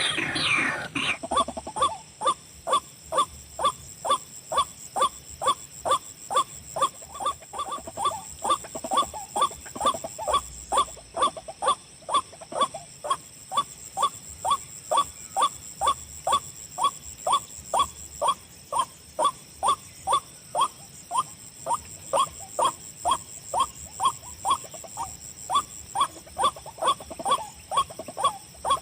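White-breasted waterhen 'ruak-ruak' call repeated about twice a second with machine-like regularity, as from a recorded lure call on a speaker. A steady high whine runs underneath, and a short rustling burst comes right at the start.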